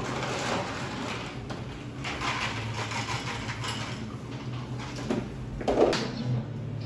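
Cafe interior ambience: a steady low hum under a haze of indistinct room noise and light clatter, with a single louder bump near the end.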